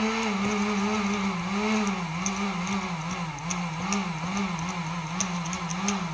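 1500-watt heat gun's fan motor running, its pitch rising and falling about twice a second, with irregular sharp crackles from a deliberate series arc at the receptacle's wire connection. The power keeps flickering but the AFCI breaker never trips.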